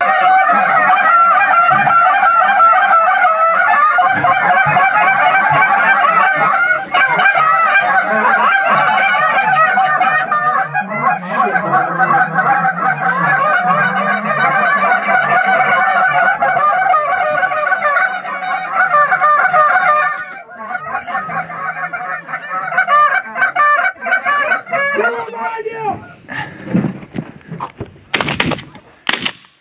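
Canada goose honking and clucking, loud, fast and nearly continuous for about twenty seconds, then thinning out. Two shotgun blasts come in quick succession near the end.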